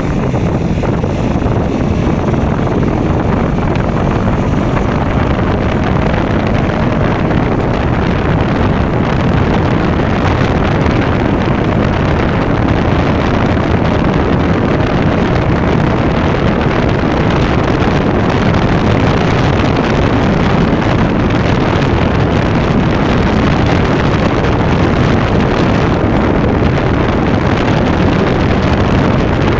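KTM Duke motorcycle engine running steadily under way, with heavy wind noise on the microphone.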